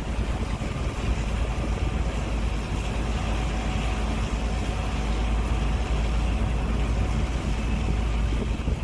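Gleaner S98 combine running steadily under harvesting load: a constant engine drone with a heavy low rumble and a few steady tones on top.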